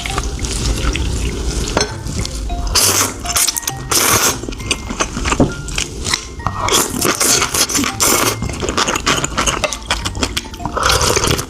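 Metal utensils clinking and scraping in a bowl of icy cold noodles, with several short bursts of rushing noise, over light background music.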